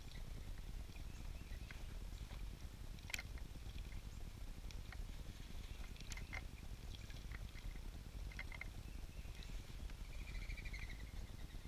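Small birds bathing at a birdbath: faint, scattered splashes as a house sparrow flutters in the water, with brief high chirps and a short trill near the end, over a steady low rumble.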